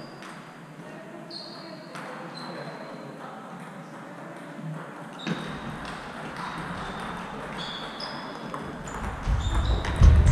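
Table tennis balls clicking off tables and bats across a sports hall, scattered single pings with a short ringing tone. Near the end a rally starts at the near table, with louder low thumps under the ball strikes.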